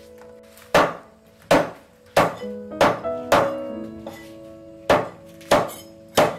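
A heavy cleaver chopping meat on a wooden cutting board: about eight hard chops at an uneven pace, with a gap of over a second in the middle. Background music with held notes plays underneath.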